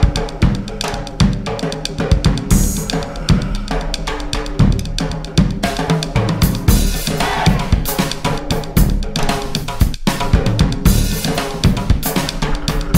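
Music with a busy drum kit beat: bass drum, snare and cymbals over a bass line, breaking off for an instant about ten seconds in.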